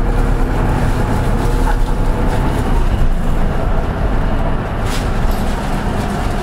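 Cabin sound of a Hino Poncho small bus under way: its four-cylinder diesel engine runs steadily under a low rumble and road noise, with a sharp rattle or click about five seconds in.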